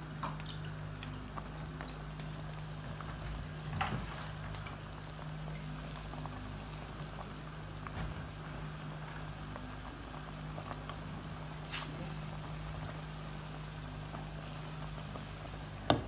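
Pot of meat and stockfish steaming on a gas stove: a faint steady bubbling over a low hum, with a few soft knocks.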